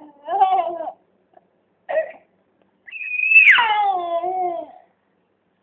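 A baby vocalising: a short babble, a brief sound about two seconds in, then a long high squeal that starts shrill and slides down in pitch.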